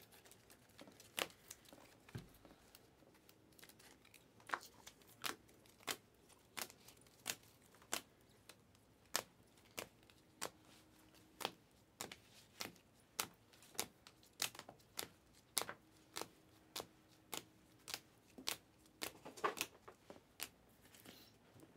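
Trading cards in rigid plastic holders clicking against one another as a stack is flipped through one card at a time: a faint, irregular click every second or so.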